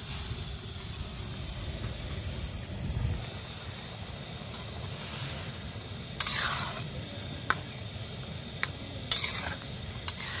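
Metal ladle stirring curry in an iron kadai: several scrapes and clinks against the pan from about six seconds in, over a steady low rumble.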